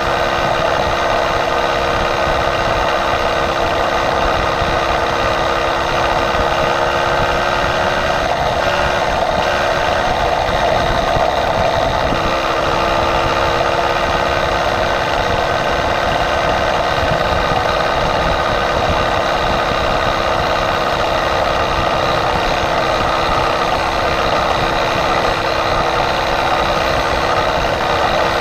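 Small motorized-bicycle engine running steadily at cruising speed, with a slight wavering in pitch around the middle.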